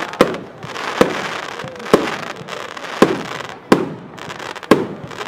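Royal Fireworks 'Garden of Eden' consumer firework cake firing shot after shot. Six sharp reports come about once a second, with a hissing rush of sparks between them.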